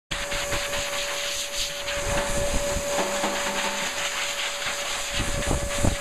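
Hairdryer blowing steadily: a rushing of air with a constant whine. A few low bumps near the end.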